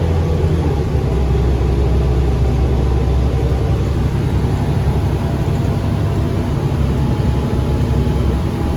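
Transit bus engine running, heard from inside the passenger cabin as a steady low rumble with faint steady tones above it.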